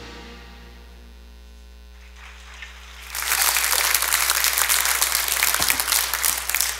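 The last notes of a clarinet piece fade out, then about three seconds in a church congregation breaks into applause that lasts until near the end.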